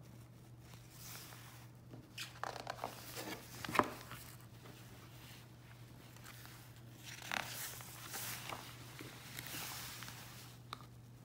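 Pages of a paperback book being turned by hand: two spells of paper rustling and flapping, the first ending in a sharp snap, over a faint steady hum.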